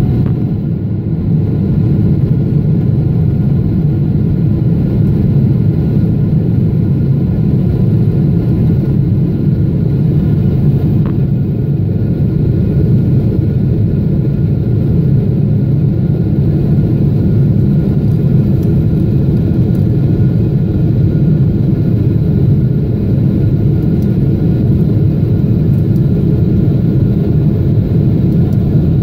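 Jet airliner cabin noise beside the wing-mounted turbofan engine during the climb after takeoff: a loud, steady rumble with a faint steady whine above it.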